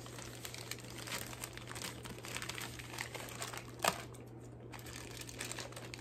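Packaging crinkling and rustling as hands work at the wrapping on a book, with scattered small crackles and one sharper click about four seconds in.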